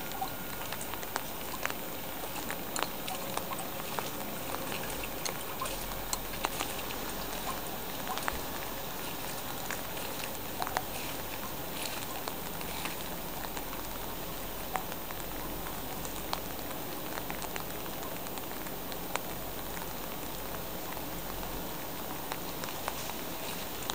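Rain falling steadily, with scattered sharp taps of individual drops landing close to the microphone.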